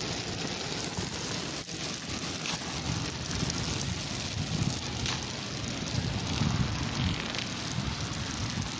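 A weight-pulling drag hauled by a dog along a concrete sidewalk, a continuous scraping and crackling as it slides over the pavement.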